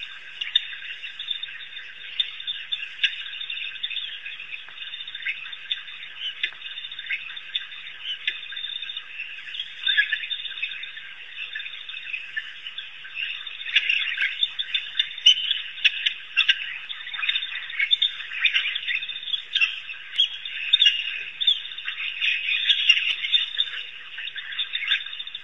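African wild dogs twittering while feeding at a kill: a continuous chatter of many short, high chirping calls, growing denser and louder about halfway through.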